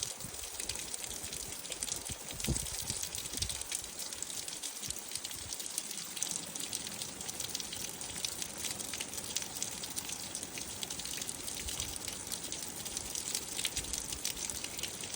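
Running water, a steady splashing and trickling.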